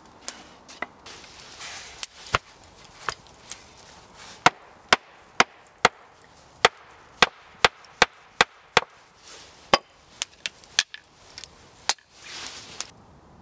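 Hatchet chopping wood on a chopping block: a run of some twenty sharp, hard knocks, irregular but about two a second at their busiest and loudest in the middle, followed by a brief scraping rustle near the end.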